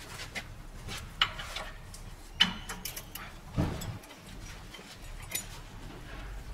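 Scattered clinks and knocks of metal hand tools against metal parts, with two sharp ringing clinks about one and two and a half seconds in and a duller knock shortly after.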